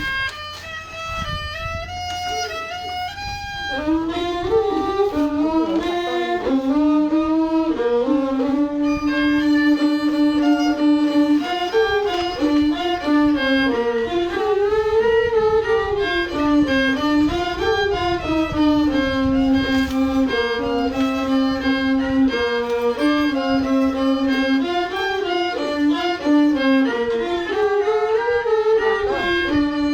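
A bowed fiddle playing a solo melody, with held notes and sliding pitch between them.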